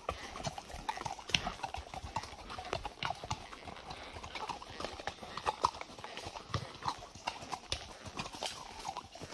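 Horses' hooves clip-clopping under riders, an uneven run of short clops a few to the second.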